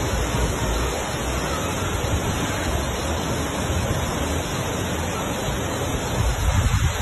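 Floodwater rushing along a city street, a steady rushing of water recorded on a phone, with gusts of wind on the microphone near the end.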